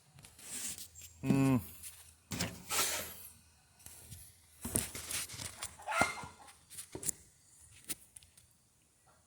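A single short animal call about a second in, followed by scattered knocks and rustles of handling.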